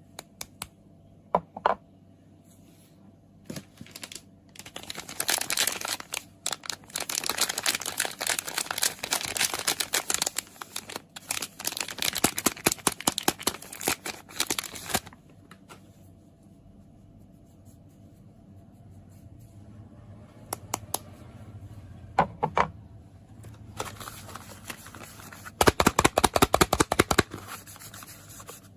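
Hands unwrapping soap: paper and plastic wrappers crinkling and tearing in bursts, with a quieter pause in the middle. Near the end comes a loud run of fast, even fingernail tapping on the packaging.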